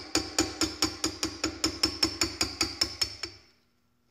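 Small hammer tapping a punch to drive the gas tube pin out of an AR-15 gas block, about four steady, ringing metal taps a second. The tapping stops about three and a half seconds in.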